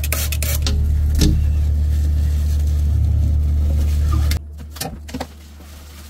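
A steady, loud low rumble with a few short scraping strokes in the first second or so, cutting off abruptly about four and a half seconds in.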